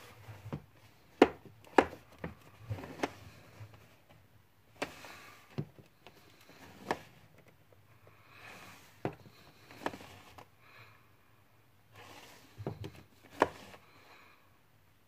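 Plastic disc cases clacking and rubbing against each other and a wooden shelf as they are pulled out of a packed row and pushed back. There are a dozen or so sharp clicks and knocks at uneven intervals, with soft sliding between.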